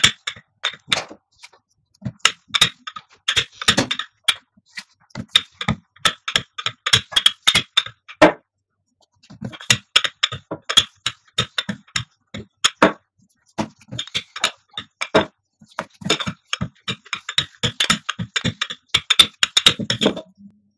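Wooden rolling pin clicking and knocking as it is rolled back and forth over a stack of oiled, floured dough rounds being pressed into thin samosa pastry sheets. Runs of quick, irregular clicks, with a couple of short pauses.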